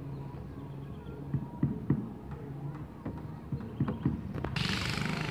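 Knocks and bumps on a wooden canoe hull as people move about in it, over the steady low hum of a boat motor running. About four and a half seconds in, a louder hissing noise starts suddenly.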